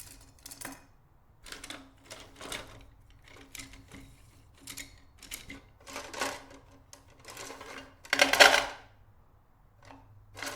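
Paintbrushes making a series of short, irregular scratchy strokes, with the longest and loudest stroke about eight seconds in.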